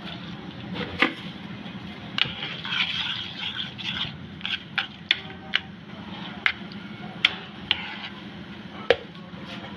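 Leftover ghee milk solids and sugar sizzling as they roast in a frying pan, while a spoon stirs and scrapes the pan, clicking against it about nine times.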